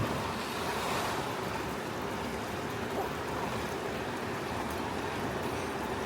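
Steady rushing of flowing water from a river or waterfall.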